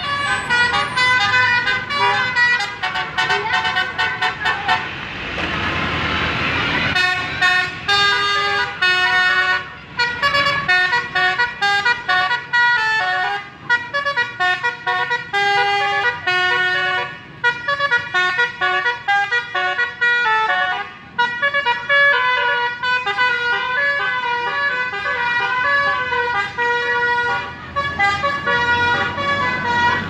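Tour buses' 'basuri' multi-tone air horns playing telolet tunes: several horn notes sounding together and stepping quickly from chord to chord in a melody. A burst of rushing noise comes in about five seconds in.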